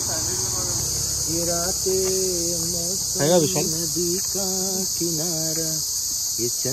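A steady, high-pitched drone of insects from the surrounding forest, unbroken throughout. People's voices talk over it from about a second and a half in.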